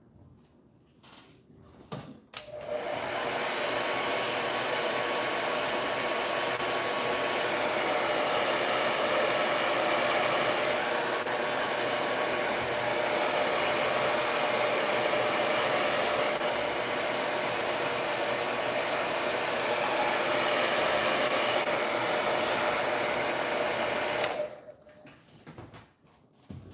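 Handheld hair dryer blowing steadily onto a freshly painted MDF plaque to dry the paint. It comes on a couple of seconds in and cuts off shortly before the end.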